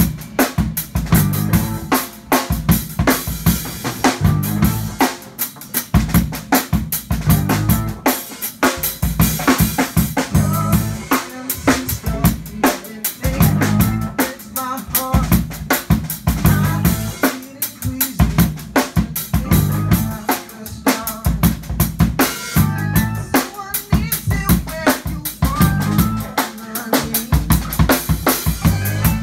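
Small rock band playing live in a room: a full drum kit with kick, snare and cymbals drives a steady beat under electric guitar and bass guitar.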